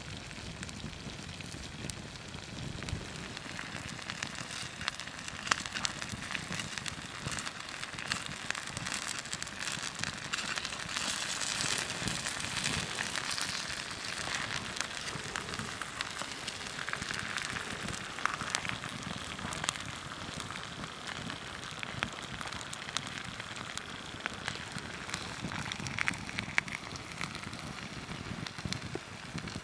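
Wood fire crackling with scattered sharp pops over a steady hiss of a cream-and-cheese potato gratin sizzling in its pan by the fire. The hiss swells for a few seconds a little before the middle.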